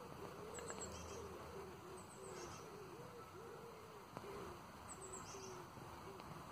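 A flying insect buzzing close by, its pitch rising and falling over and over as it circles. Faint bird chirps come a few times in the background.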